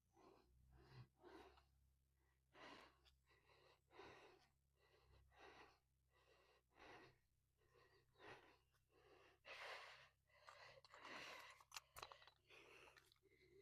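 Near silence, with faint soft puffs of noise coming and going irregularly about once a second.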